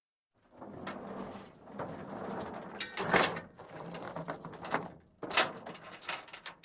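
Steel chain and ratchet chain binder being worked: chain rattling and scraping over metal, with two sharp metallic clanks, one near the middle and another later.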